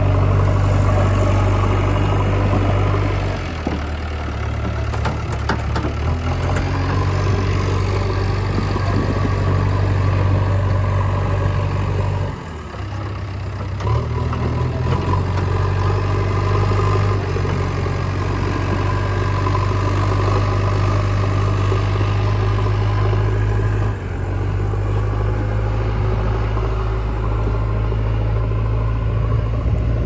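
Diesel engine of a JCB 3DX backhoe loader running under working load. It shifts in pitch a few seconds in, drops briefly near the middle, and changes again about three quarters of the way through.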